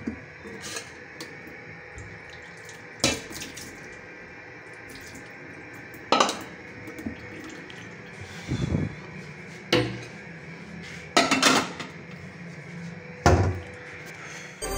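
Tap water running steadily into a kitchen sink, with about six sharp clatters of steel pots and dishes being handled.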